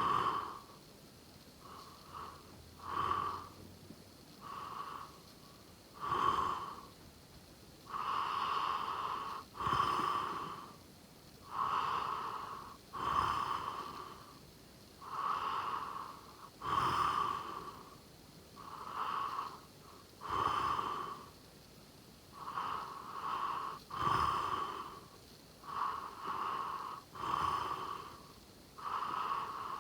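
A sleeping person snoring and breathing noisily: a rasping breath about every one to two seconds, some much stronger than others.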